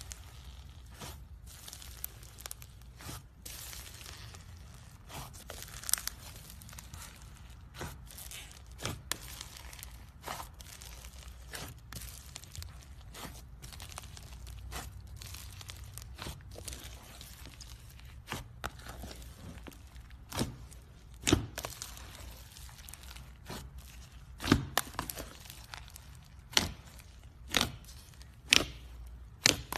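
Slime being squeezed and worked by hand, crackling and popping with irregular sharp clicks; several louder pops come in the second half, over a low steady hum.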